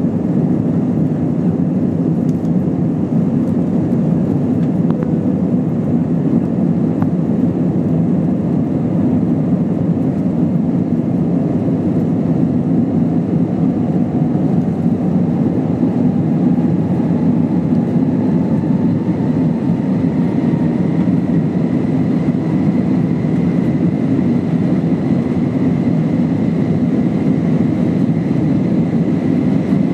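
Airbus A320's IAE V2500 turbofan engines running, a loud steady rumble with a whine that rises in pitch about halfway through and then holds.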